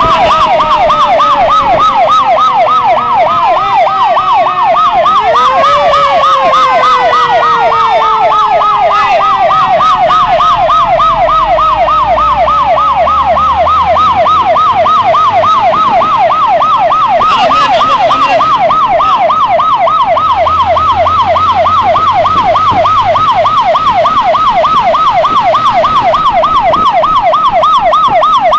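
Fire-engine sirens: one siren yelps rapidly at several sweeps a second throughout. Over it a second, lower siren tone slides slowly down in pitch, swoops briefly up about five seconds in, then falls away and fades out about fifteen seconds in.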